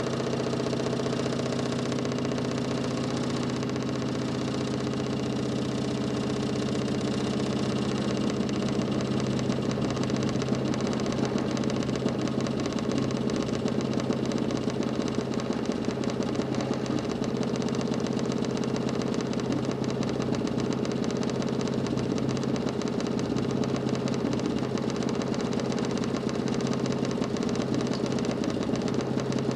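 DC motor spinning a 40 cm plywood Nipkow disc at high speed, free-running: a steady hum with a fast rattle that grows a little louder and busier about eight seconds in.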